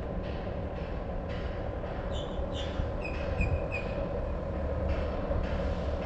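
Steady low rumble of wind buffeting the camera microphone over open water, with a few short high chirps about two to four seconds in.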